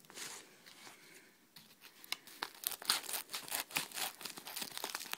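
Plastic wrapping being torn open and crinkled by hand: a quiet rustle, then a busy run of sharp crackles starting about two seconds in.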